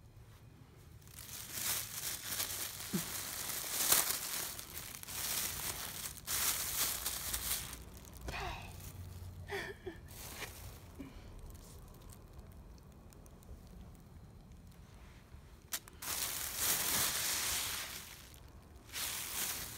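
Thin plastic bag crinkling and rustling as a cat shifts inside it, in several bursts: a long stretch in the first half and another near the end.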